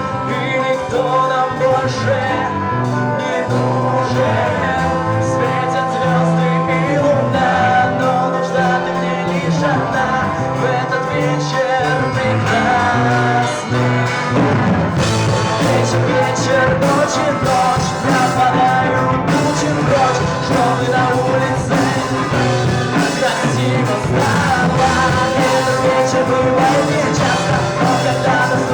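Live band playing the slow instrumental introduction to a love song, with no lyrics sung yet. The sound gets fuller, with more cymbal, about halfway in.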